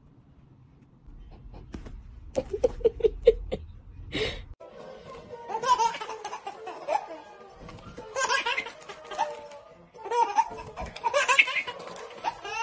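A short run of quick chuckles, then a baby laughing in repeated bursts of belly laughter over background music.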